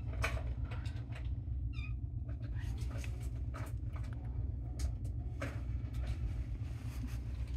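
A hand stroking kittens' fur on a fleece bed, making soft rustles and small scuffs over a steady low rumble.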